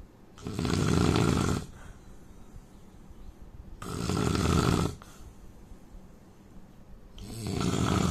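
A man snoring: three long snores, each a little over a second, coming about every three and a half seconds, with the last one still going at the end.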